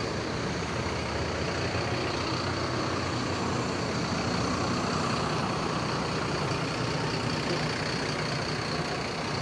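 Mercedes-Benz intercity coach's diesel engine idling steadily, a low even rumble.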